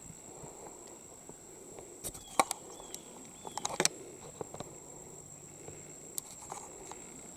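Steady high-pitched insect trill, like crickets, with scattered clicks and rustles around the middle and three short chirps among them.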